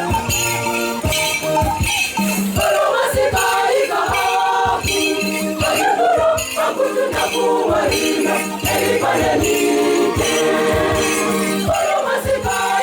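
Church choir singing a hymn in Ngakarimojong, several voices together, over percussion keeping a regular beat.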